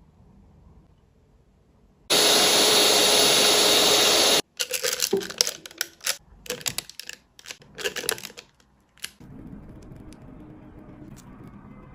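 Electric whisk whipping cream: a loud, steady motor whine for about two seconds that cuts off suddenly. Then a spatula scraping and tapping as the stiff whipped cream is scooped into a plastic piping bag, with the bag crinkling.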